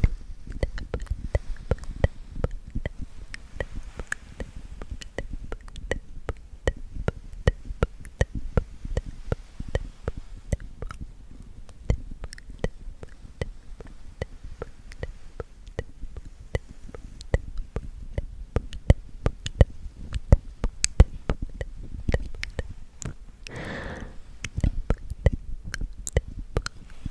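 Close-miked ASMR trigger sounds: a dense, uneven run of soft clicks and taps over a low rubbing rumble, with a brief breathy sound about 24 seconds in.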